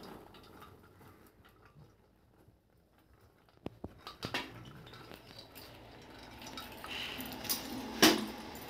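Popcorn being tipped from an aluminium pressure cooker into a steel bowl. About halfway through, light metal clinks and knocks start, with popcorn rustling as it slides, and a louder clank of pot on bowl comes near the end.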